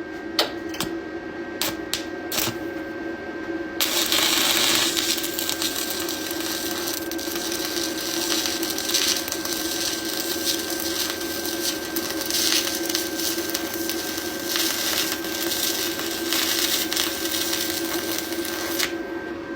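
Stick welding arc from a TOOLIOM TL-195S welder: after a few sharp taps, the arc catches about four seconds in and crackles and sizzles steadily for around fifteen seconds as a bead is run, then stops shortly before the end.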